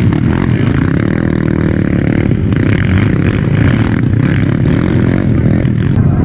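Motorcycle engine running, its pitch rising and falling as the throttle is worked.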